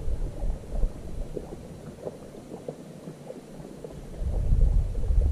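Wind gusts buffeting the microphone as a low rumble, easing off about two seconds in and rising again near the end, with faint small knocks and laps of water on the boat underneath.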